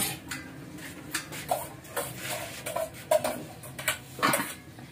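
Irregular light clicks and clinks of cooking pots and utensils, with a louder clatter about four seconds in.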